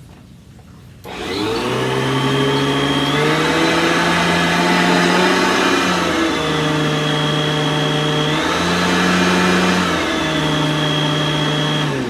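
Aeros upright vacuum cleaner (model U162C) switched on about a second in, its motor spinning up and running, the pitch dipping and recovering twice. It is switched off near the end and winds down. The motor works.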